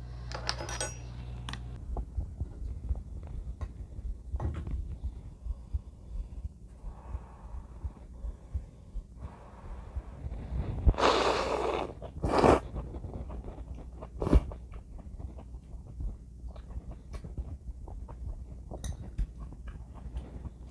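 Close-up eating sounds: chopsticks clicking against the dishes and chewing, with a loud slurp of noodles from beef-and-scallion yukgaejang about 11 seconds in and a shorter slurp a second later. A low steady hum sits underneath.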